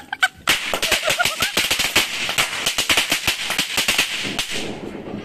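A string of firecrackers going off: rapid sharp cracks, many a second, from about half a second in until they thin out and stop about four and a half seconds in.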